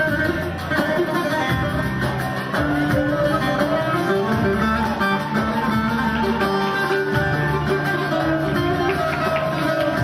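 Instrumental music led by a plucked string instrument, playing without a break.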